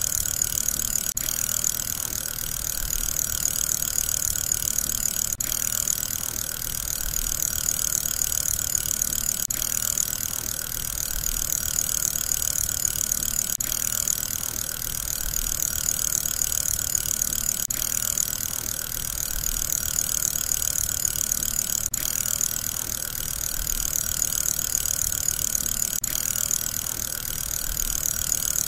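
Fidget spinner's bearing whirring steadily, a short recording looped, with a slow rise and fall in loudness and a brief dropout about every four seconds.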